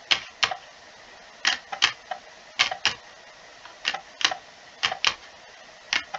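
Floppy disk drive reading an install disk: the drive head clicks as it steps, in pairs of sharp clicks about once a second.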